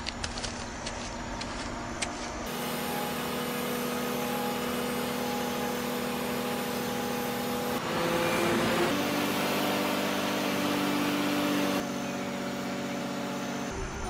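A toy crane's small electric motor whirring steadily. It starts a couple of seconds in, its pitch shifts about two-thirds of the way through, and it cuts off just before the end.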